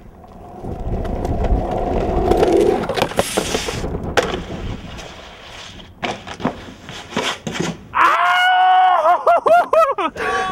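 Snowboard sliding over packed snow with a rising scraping hiss, then a run of sharp knocks and clatters from the board on hard surfaces. Excited shouting from the crew starts about two seconds before the end.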